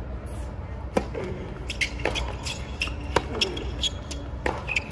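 Tennis ball struck by rackets in a rally on a hard court: a serve about a second in, then sharp hits roughly a second apart, four in all. Steady crowd murmur underneath.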